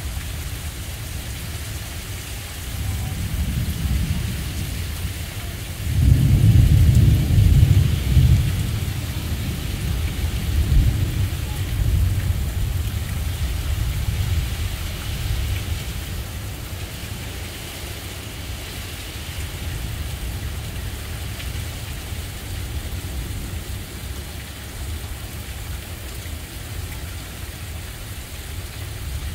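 Thunderstorm: steady heavy rain with a thunder rumble that builds, breaks loudly about six seconds in, then rolls on and fades over the next ten seconds.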